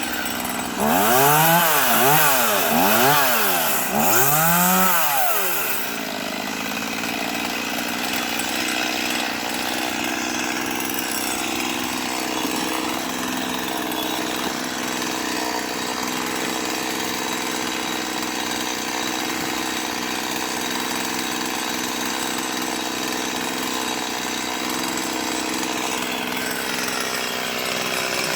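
Chainsaw revved up and down about four times in quick succession over a few seconds, the throttle rising and falling, then a steady engine hum for the rest of the time.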